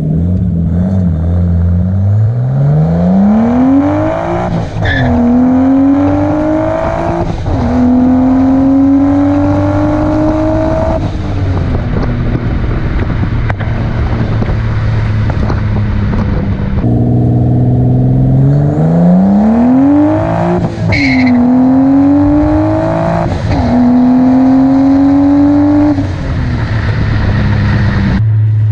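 Nissan Skyline R32's turbocharged RB20DET straight-six pulled hard twice. Each time the revs climb through the gears with quick upshifts, then drop back to steady cruising.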